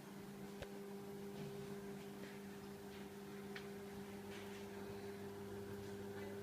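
Boshijie mini ceiling fan running: a steady, faint motor hum with light ticks recurring a little more than once a second.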